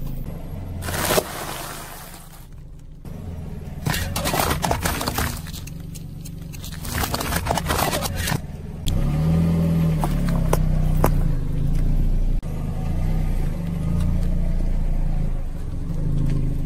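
A car's tyre rolling slowly over drink cartons and aluminium drink cans on asphalt, crushing them in several short bursts of crunching and crackling. Under it the car's engine runs at low revs, growing louder in the second half with a brief rise and fall in pitch.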